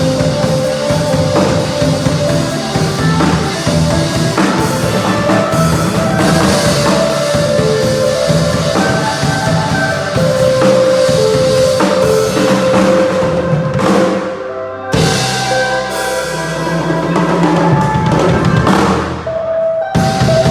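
A band playing an instrumental passage at rehearsal: drum kit with bass drum and snare under held melody lines. The music breaks off briefly about two-thirds of the way in and again near the end.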